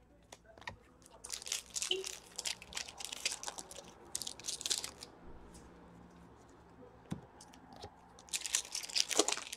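Foil wrapper of an Upper Deck Series 1 hockey card pack being torn open and crinkled by hand, in a long bout about a second in and a shorter, louder one near the end.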